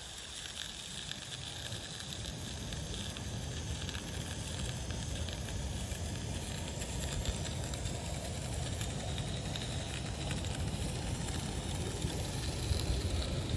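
Live-steam miniature locomotive running past with its coaches: a steady hiss of steam over the rumble of wheels on the rails, growing louder as the train comes closest near the end.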